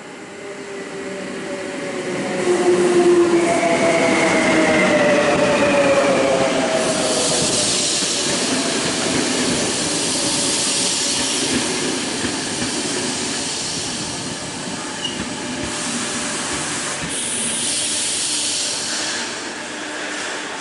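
CP class 5600 electric locomotive and its train of Sorefame stainless-steel carriages running slowly past as they pull into the station. The sound grows louder as the train approaches, and a whine falls in pitch as the locomotive passes about three seconds in. Then comes a steady rushing hiss of the carriages' wheels and brakes rolling by.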